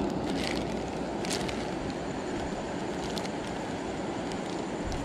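A steady low outdoor rumble, with a plastic bag crinkling briefly twice as it is handled, about half a second and just over a second in.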